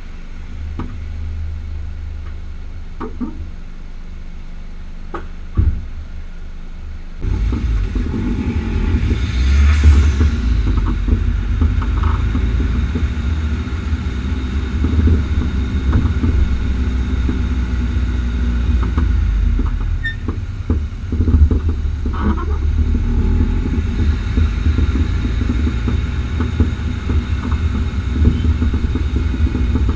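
Renault Megane III on the move: a low road rumble with repeated short pops and knocks, the popping the front right coilover makes over road bumps, which has come back after two repairs. The first few seconds are quieter with a few isolated clicks, then the rumble comes in suddenly about seven seconds in.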